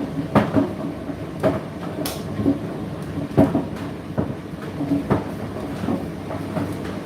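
Indesit IDC8T3 8 kg condenser tumble dryer running: a steady motor and drum hum with irregular thuds every second or so as the load tumbles in the drum.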